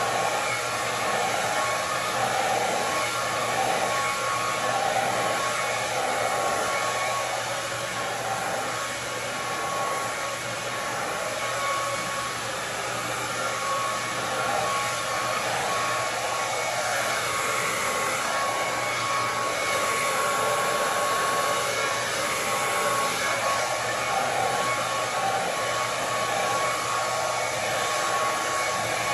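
Handheld hair dryer with a comb nozzle running continuously, a steady rush of blowing air with a thin, constant whine.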